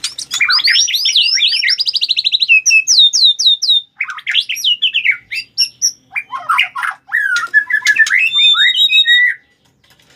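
White-rumped shama (murai batu) singing a loud, varied song in a challenging, fighting mood: fast runs of repeated sweeping whistled notes and trills, with a brief pause partway through. The song stops shortly before the end.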